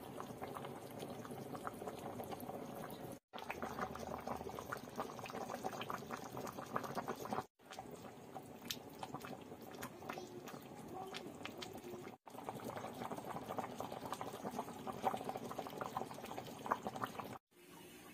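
Menudo stew simmering in a pan: a steady bubbling with many small pops of the thick tomato sauce. It cuts out for a moment about every four seconds.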